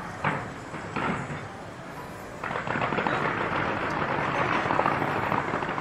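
Fireworks going off: two sharp booms in the first second, then a dense, sustained crackle from about two and a half seconds in.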